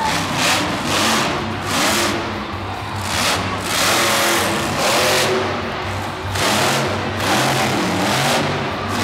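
Grave Digger monster truck's supercharged V8 engine revving hard in repeated surges, rising and falling about once a second, over stadium music.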